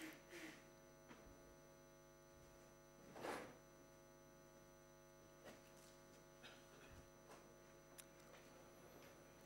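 Near silence with a steady electrical mains hum, broken by one brief faint noise about three seconds in and a few faint clicks afterwards.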